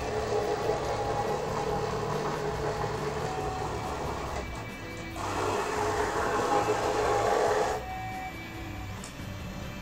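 3D printer's stepper-driven ball-screw Y axis moving the heavy bed back and then forward: a whine of steady pitched tones, louder on the second move about five seconds in. The axis acceleration is set too high (1,000) for the mass it moves.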